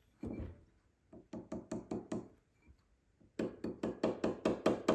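Light hammer taps on a metal ring as it is trued back to round: a run of about five quick taps, a pause, then a faster run of about eight taps near the end.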